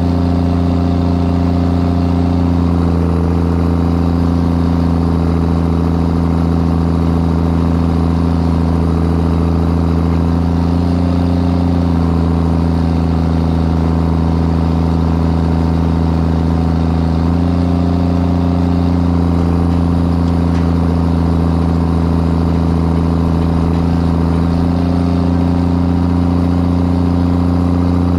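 Heavy diesel engine running at a steady, loud pace, its note shifting slightly a few times.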